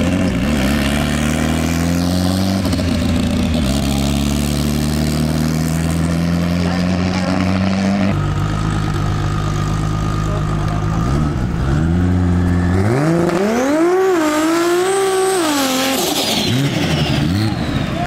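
Car engines running and held at steady revs, then a fourth-generation Toyota Supra's engine revving hard, its pitch swinging up and down several times, as it spins its rear tyres near the end.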